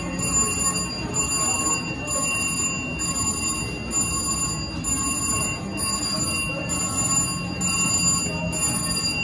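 VGT slot machine sounding a repeating electronic ringing, about one pulse a second, while in its red-screen bonus mode, which ends in a hand-pay jackpot. A low murmur of casino background noise runs underneath.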